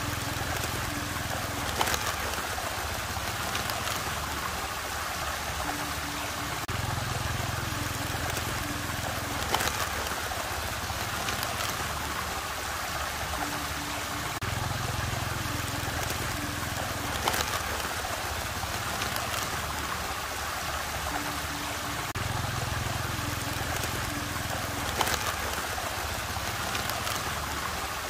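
Steady rushing, gurgling water of a whirlpool. Under it a low pattern repeats about every eight seconds, each time with a sharp tick, as in a looped sound.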